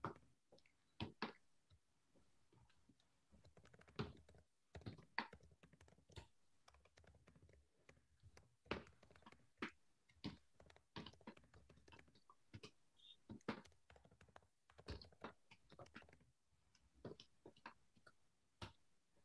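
Faint typing on a computer keyboard: short key clicks at an irregular pace, in little runs with pauses between.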